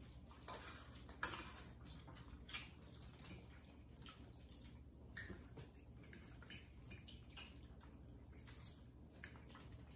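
Faint eating sounds at a table: scattered light clicks of forks on plates and soft chewing, over a steady low room hum.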